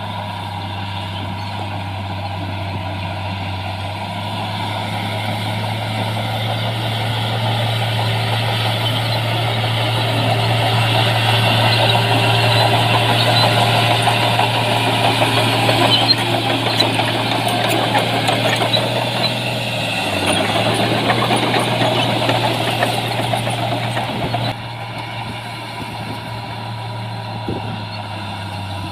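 Diesel engine of heavy earthmoving machinery running steadily under work. It grows louder through the middle, then drops suddenly near the end.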